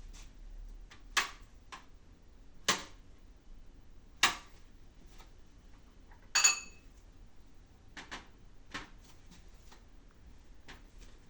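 Knife chopping fruit on a plate: a series of sharp knocks as the blade strikes through to the plate, spaced a second or two apart, one of them ringing briefly like china, then fainter taps toward the end.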